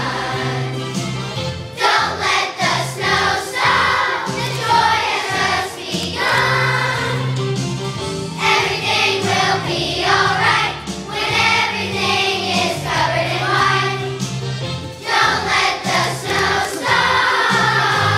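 Children's choir singing a song in unison, accompanied by a keyboard playing held chords underneath.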